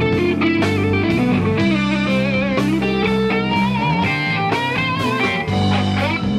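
Live band music with a Telecaster-style electric guitar played to the fore over sustained bass notes.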